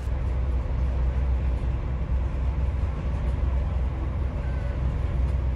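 Steady low rumble aboard a moving ferry boat, its engine mixed with wind noise.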